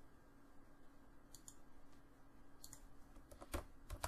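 A handful of faint, scattered clicks from a computer mouse and keyboard as CAD software is operated, the loudest about three and a half seconds in, over a low steady hum.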